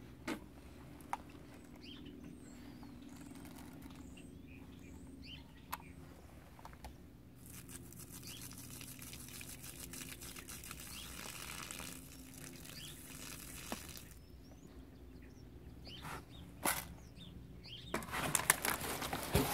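Outdoor ambience with scattered small bird chirps over a low steady background. There are a few isolated clicks, and a louder burst of rustling near the end.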